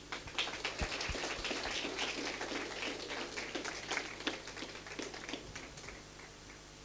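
Audience applauding, fairly faint, dying away near the end.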